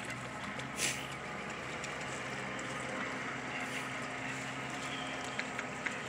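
A steady low mechanical hum, with a short hiss about a second in.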